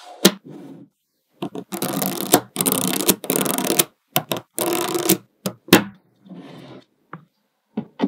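Small magnetic balls clicking sharply as they snap together, with a few longer rattling, crackling stretches as groups of balls are handled and pushed into place.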